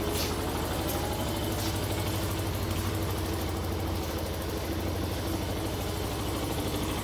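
Benelli BN125's single-cylinder 125 cc four-stroke engine idling steadily with no throttle, warming up on its first start after about four months of winter storage.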